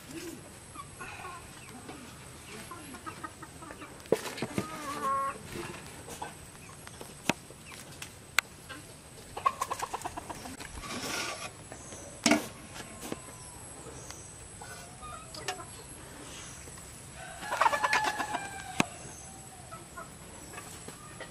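Domestic chickens clucking in a couple of short bursts of rapid calls, about midway and again near the end, with a few sharp knocks scattered in between.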